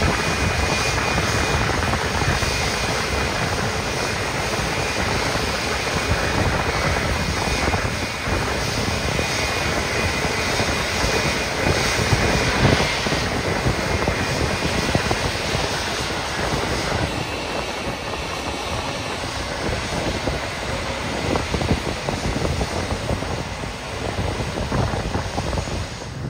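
Jet airliner running on the ground: a steady rushing noise with a faint high whine through about the first half.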